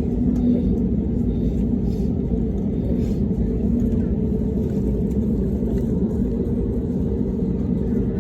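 Airbus A320neo cabin noise: a steady low rumble with a faint even hum, engines running.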